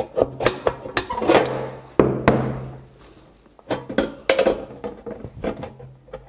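Hand tin snips cutting painted sheet-metal flashing: a run of sharp metallic snips with the sheet rattling and ringing, one louder ringing clang about two seconds in, then a short lull before the snipping starts again.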